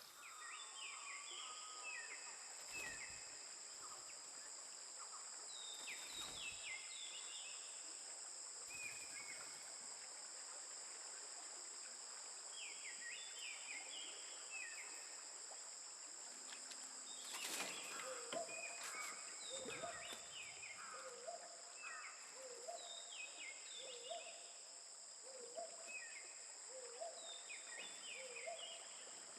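Faint natural ambience: a steady high insect drone on two pitches, with many short repeated bird chirps and, in the second half, a regular series of lower chirping calls.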